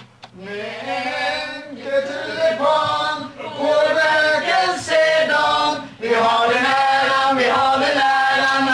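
A small group of men's and women's voices singing a birthday song together in long, held notes. There is a short break about six seconds in before they carry on.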